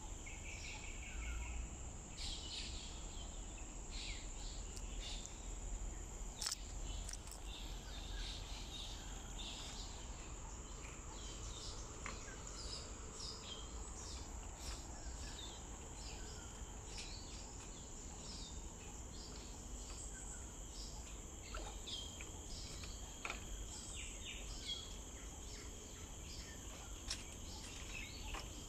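Outdoor wildlife ambience: a steady high-pitched insect drone of crickets or cicadas, with many short bird chirps scattered throughout.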